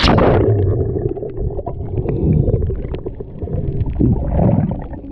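Muffled underwater sound picked up through a diving camera: water moving and gurgling with a low rumble and scattered crackling clicks. It starts with a sudden rush of noise.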